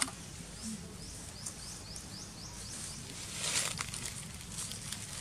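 Outdoor ambience with a steady low rumble. Between one and two seconds in comes a quick run of about six high, descending chirps from a small animal, and a short rustling swell follows about three and a half seconds in.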